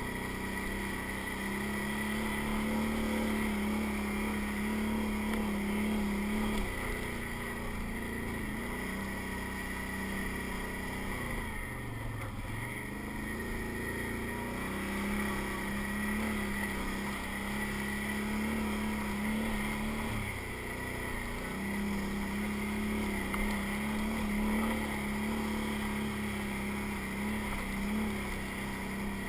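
Can-Am ATV engine running at low, steady throttle while the quad crawls over rock. The drone eases off briefly three times and then picks up again.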